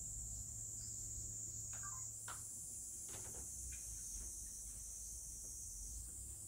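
Steady high-pitched insect chorus, with a low steady hum underneath and a few faint soft ticks about two to four seconds in.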